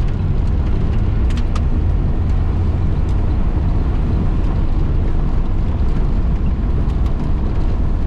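A 1972 Datsun 1600 being driven, heard from inside the cabin: a steady drone of engine and road noise, with a couple of faint clicks about a second and a half in.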